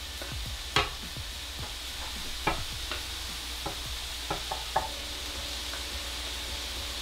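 Shredded carrots scraped from a glass bowl into a sizzling electric skillet of pork and tofu filling, with a steady sizzle under a few sharp knocks of the spatula against the bowl and pan.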